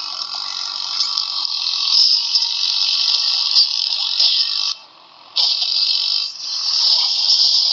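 A long, raspy burp lasting about five seconds, a brief pause, then a second rasping burp of about three seconds.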